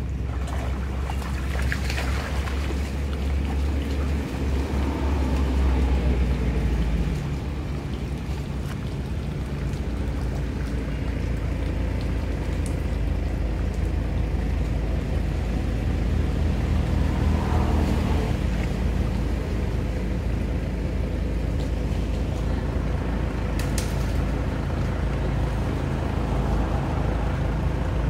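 Water sloshing and splashing, with a few louder splashes, over a steady low rumble.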